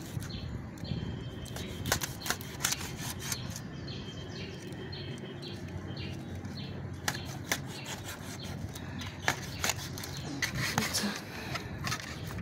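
Kitchen knife cutting through catfish on a perforated stainless-steel steamer plate: irregular sharp clicks and taps as the blade strikes the metal plate.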